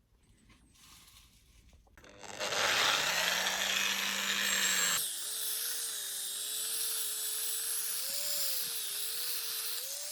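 A handheld electric power tool starts up about two seconds in and runs steadily. About halfway through, its sound changes abruptly to a higher, brighter run whose pitch wavers, and it cuts off at the very end.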